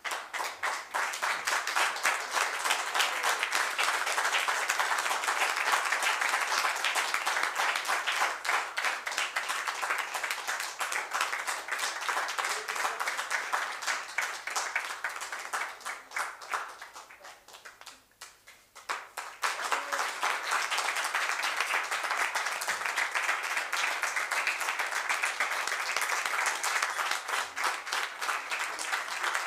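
A small audience applauding, starting suddenly, dying away about seventeen seconds in, then breaking out again a couple of seconds later and carrying on.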